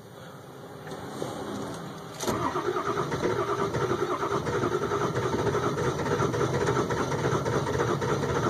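Starter cranking the 2002 Ford F350's 7.3 L Powerstroke V8 turbo-diesel on a cold start, a steady rapid chugging that comes in suddenly about two seconds in. The engine keeps trying but does not catch: a hard cold start.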